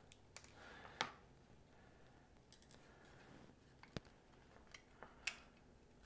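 Faint, scattered clicks and snaps of a pocket radio's plastic case as its two halves are worked apart by hand, with about half a dozen sharp ticks, the sharpest about four and five seconds in.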